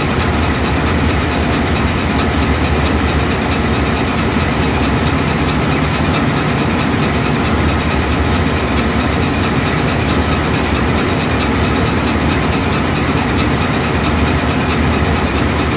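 Large diesel engine running loudly and steadily at constant speed, an even machinery drone with no change in speed.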